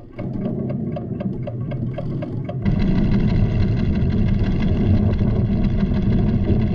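Cartoon sound effect of a volcanic tremor: a low rumble rises under rapid ticking from measuring instruments, about five ticks a second. About two and a half seconds in, the ticking stops and a louder, heavier rumble takes over with sustained tones above it.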